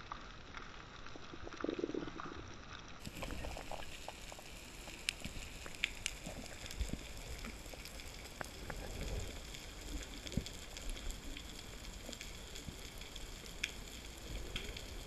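Underwater sound picked up by a camera in its housing while swimming: a muffled rush of moving water with many scattered clicks and crackles.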